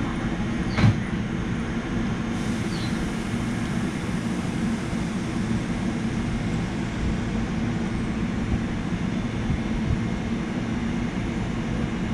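Tobu 100 series Spacia limited express standing at the platform, its onboard equipment giving a steady hum. A single short knock about a second in.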